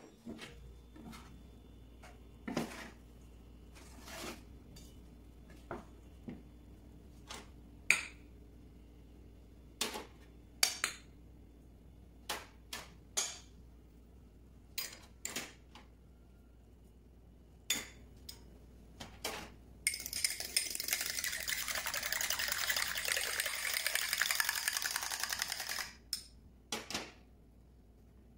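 Clinks and knocks of a utensil against a stainless-steel mixing bowl while grains, seeds and spices are mixed, scattered over the first twenty seconds. Then about six seconds of continuous, fast scratchy stirring noise.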